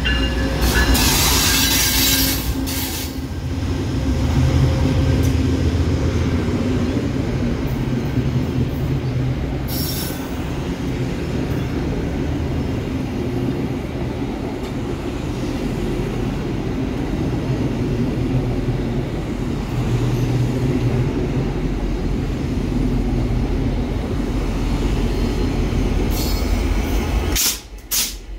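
VIA Rail passenger train passing close by, a GE P42 diesel locomotive followed by coaches and an EMD F40PH locomotive at the rear: a steady low rumble of diesel engines and wheels on the rails. Short high-pitched bursts come near the start, about ten seconds in, and near the end.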